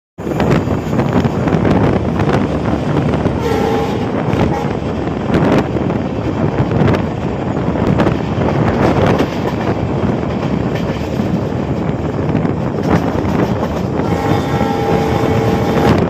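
Express train running at speed, heard from an open coach door: a steady rush of wheels and wind. The locomotive's horn sounds twice, a short blast about three and a half seconds in and a longer one starting about fourteen seconds in.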